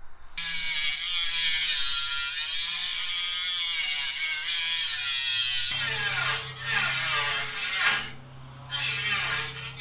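Angle grinder with a cut-off wheel cutting through the rim of a steel drum: a loud, high whine whose pitch wavers as the wheel loads and eases. The whine drops away briefly about eight seconds in and then picks up again.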